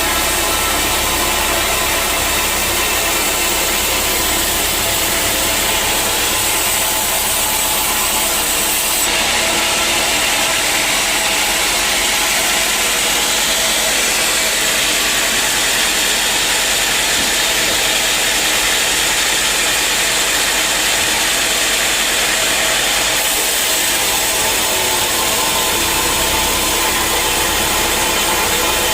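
Bandsaw mill running loud and steady. About nine seconds in the sound turns brighter and hissier as the blade cuts through dry teak, and it settles back about twenty-three seconds in.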